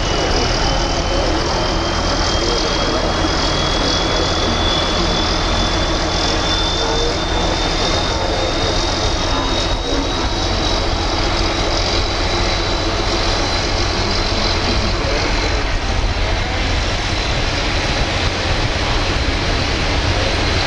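Thai long-tail boat engine running steadily under way: a loud, even drone with a strong low end. A thin high whine over it rises slowly in pitch through most of the stretch.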